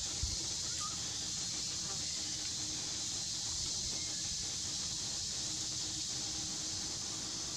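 Steady high-pitched hiss of dry-forest ambience, with a brief faint chirp about a second in.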